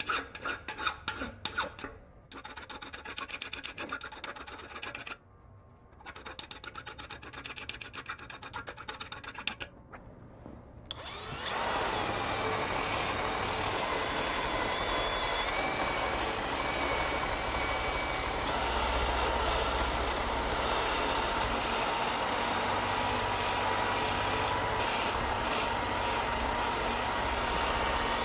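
A hand file rasps back and forth over a brazed patch on a steel air-compressor tank in quick strokes, with short pauses. About eleven seconds in, a cordless drill fitted with a wire wheel starts and runs steadily, scrubbing rust and paint from the patch.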